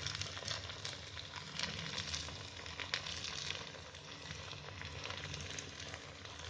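Onion-and-cucumber rice-flour vada deep-frying in hot oil in a kadhai: a steady sizzle with scattered crackles and pops.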